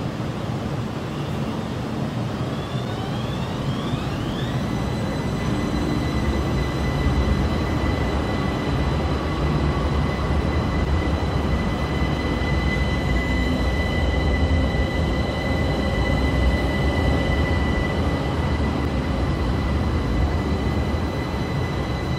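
Modern electric low-floor tram running in and slowing along a platform: a steady rumble of wheels and running gear, with an electric whine that rises in pitch a few seconds in and then holds as a steady high tone.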